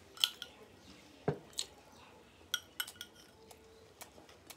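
A metal spoon clinking against a glass serving bowl and plates as gravy is spooned out: a scatter of short, sharp clinks, about eight in all, with one duller knock about a second in.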